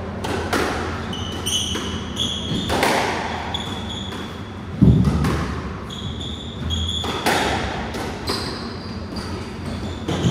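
Squash rally: the ball cracking off rackets and walls, ringing in the court, with sports shoes squeaking on the wooden floor between shots. About halfway through comes the loudest hit, a heavy thud.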